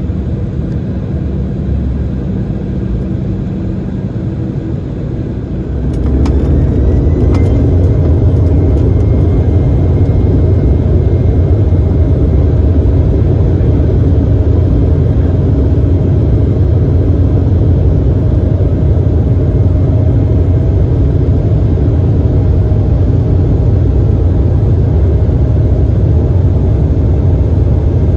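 Embraer E195's turbofan engines heard from inside the cabin, spooling up to take-off thrust about six seconds in with a rising whine. Then a steady loud engine rumble and runway noise as the jet accelerates down the runway on its take-off roll.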